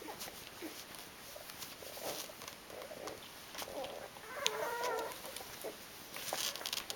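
Eight-day-old Rhodesian Ridgeback puppies nursing: soft suckling clicks and small grunting squeaks, with one longer wavering whimper from a puppy about four seconds in.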